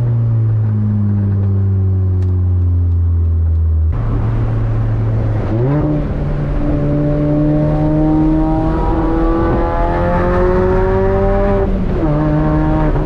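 Supercharged Mini Cooper's four-cylinder engine under way. Its pitch falls steadily as the car slows, then after an abrupt change it revs up quickly and pulls through a gear with the pitch climbing slowly. Near the end it dips suddenly and climbs again.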